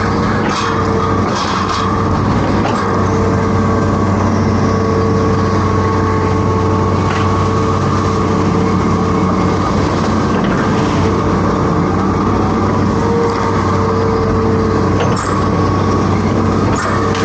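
Hitachi Zaxis 210F amphibious excavator's diesel engine running steadily with a held whine, and a few short knocks and clanks scattered through.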